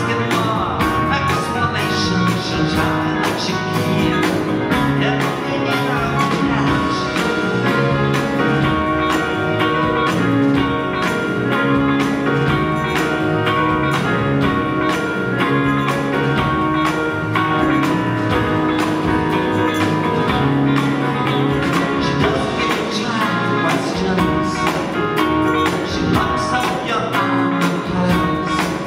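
Live soft-rock band playing: acoustic and electric guitars, keyboards, drum kit and a shaken tambourine keeping a steady beat, with a man singing lead.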